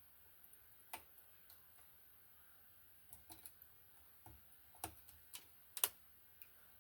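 Faint, irregular small clicks and taps as the pins of a replacement LCD are pressed into an instrument's circuit board, coming more often in the second half, with the sharpest click near the end.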